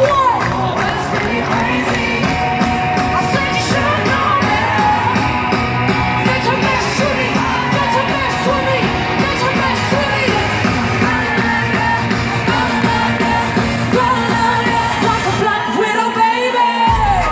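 Live pop music played loud over a concert PA, a singer's voice over a steady bass beat, with the crowd shouting along, heard from within the audience. The bass drops out briefly near the end.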